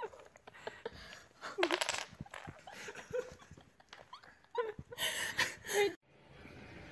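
Wooden Jenga blocks clicking and knocking lightly as a puppy noses and pulls at the tower, with bits of human voice and laughter, and a louder hissy burst about five seconds in.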